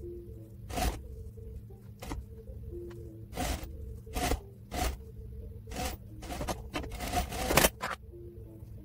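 Soft background music with a few held notes, over a series of short, irregular scraping and rustling sounds. The scraping sounds come thickest and loudest a little before the end.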